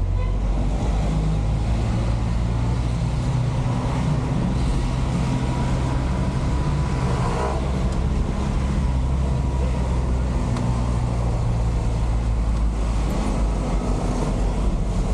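Truck engine running with road noise, heard from inside the cab while driving slowly in city traffic: a steady low drone.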